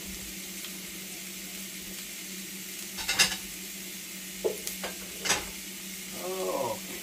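T-bone steak sizzling steadily as it sears in a hot ribbed cast iron grill pan, with a few sharp clicks about three, four and a half and five seconds in.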